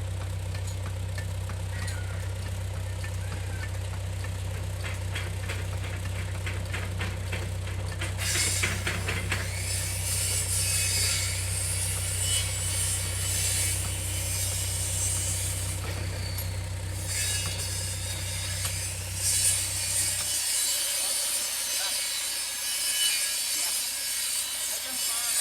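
Backhoe's diesel engine idling with a steady low hum that cuts off about twenty seconds in. Over it comes rapid clicking from about four seconds in, then a loud, harsh hissing and scraping noise that comes and goes.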